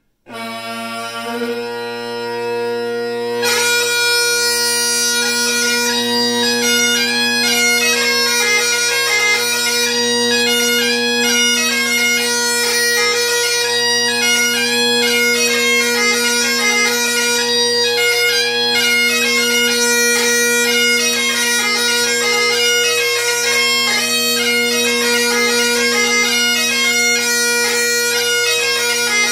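Great Highland bagpipe struck in: the drones and chanter sound together on one held note, and about three and a half seconds in the chanter breaks into a jig melody over the steady drone chord, which runs unbroken beneath it.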